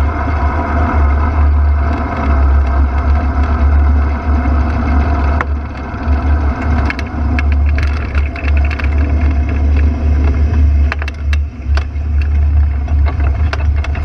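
Ultralight aircraft engine running as it taxis, with a heavy rumble of wind on the microphone. The engine note drops about five seconds in, and scattered clicks and knocks follow in the second half.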